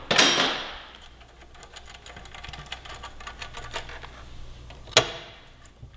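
Hand tools working on a motorcycle's stock exhaust mounting hardware: a metallic clatter at the start, then a run of small rapid clicks, and a sharp knock near the end.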